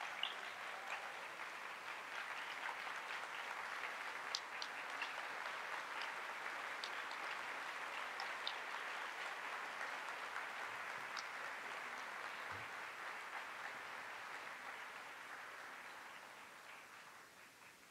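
Large audience applauding steadily, dying away over the last few seconds.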